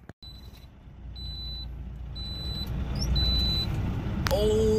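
Low drone of a four-engine turboprop military plane flying overhead, growing steadily louder as it approaches. Three short runs of high electronic beeping come in the middle, and a brief held tone sounds near the end.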